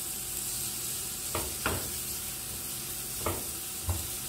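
Chopped capsicum, onion, tomato and grated carrot sizzling in melted butter in a nonstick frying pan while a silicone spatula stirs them, with four short knocks of the spatula against the pan. The vegetables are being sautéed to soften them.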